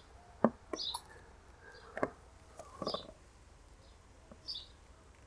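Light clicks and taps of small parts being handled as wiring connectors are pushed onto a motorcycle's brake-light switch, the sharpest click about half a second in. Short bird chirps sound in the background.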